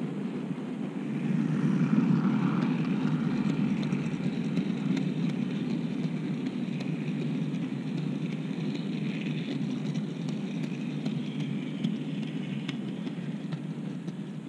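OO gauge model cattle wagons rolling past on the track: a steady rumble of small wheels on the rails, swelling about a second and a half in, with scattered light clicks, easing off near the end as the brake van passes.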